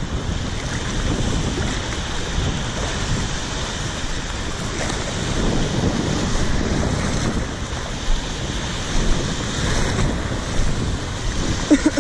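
Small surf waves breaking and washing over a shallow rocky shore, with wind rumbling on the microphone.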